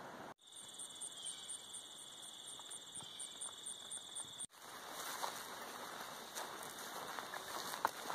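Insects calling: a steady high buzz with a quicker pulsing chirp above it, about five pulses a second. After a sudden cut come soft footsteps and rustling over a light hiss.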